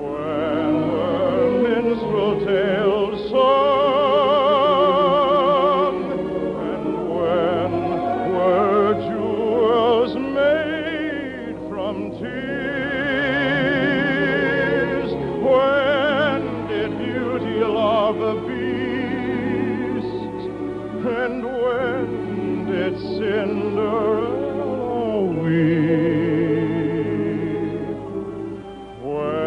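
An operetta-style song from a 1950s radio broadcast: an orchestra playing with a singer's voice held on long notes with wide vibrato.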